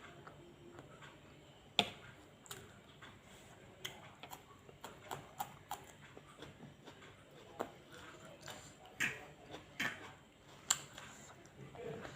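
A person eating fried rice vermicelli close to the microphone: chewing with many short, irregular clicks, a few of them louder.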